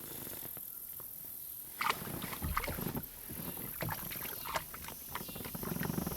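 Irregular light knocks, clicks and rattles of handling in and around a plastic fishing kayak, with water sounds, the loudest knock about two seconds in.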